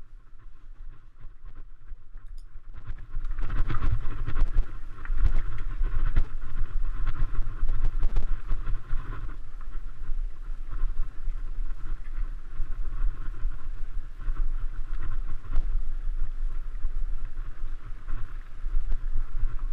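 Mountain bike riding noise on a dirt trail: a rumble of wind on the microphone with rattling and knocks from the bike. It gets loud about three seconds in and stays steady.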